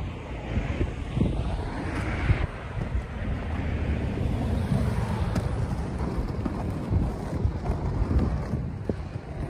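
Wind buffeting the microphone in low, uneven thumps over the noise of car traffic passing on the road.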